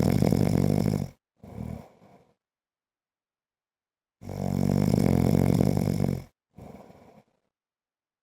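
A man snoring in his sleep: a long, loud, rattling snore ending about a second in, and another from about four seconds to six, each followed by a short, fainter breath.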